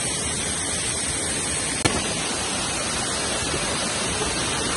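Steady rush of a waterfall pouring over rock, with a single sharp click about two seconds in.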